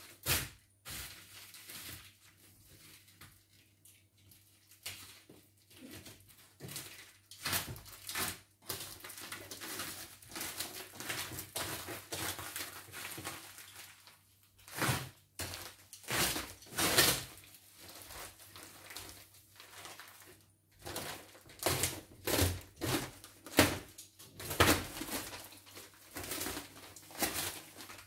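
Plastic wrapping and bubble wrap crinkling and rustling while packing tape is cut and pulled off a parcel, in a string of irregular crackling bursts that grow louder and busier in the second half.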